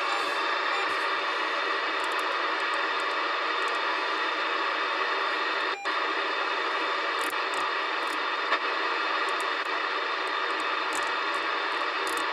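AOR AR8600 receiver hissing steadily in AM mode, its audio filled with the broadband noise of a homebrew RF noise generator fed into its antenna input. The hiss cuts out for a moment about six seconds in, and there is a small click at about eight and a half seconds.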